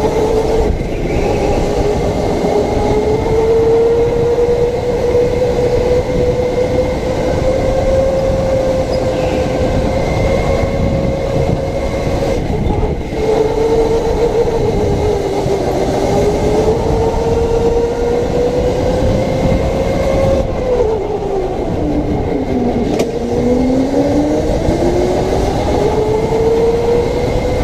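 Electric go-kart's motor whining as it drives, the pitch rising and falling with the kart's speed over a low rumble. About three-quarters of the way through the whine drops steeply as the kart slows for a corner, then climbs again as it accelerates out.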